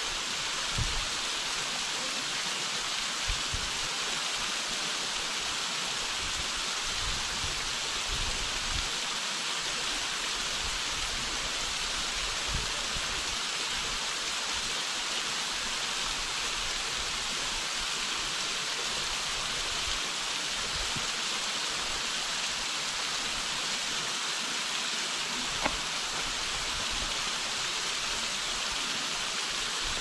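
Thin, multi-tiered waterfall spilling down a rock face into a rocky pool: a steady, even rushing hiss of falling water, with a few brief low thumps now and then.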